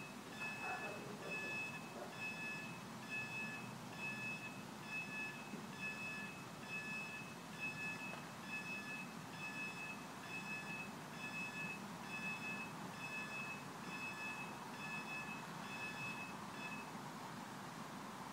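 Level crossing audible warning alarm, a repeating high multi-tone bleep about once a second, sounding while the barriers lower to close the road for a train. It stops shortly before the end, once the barriers are down.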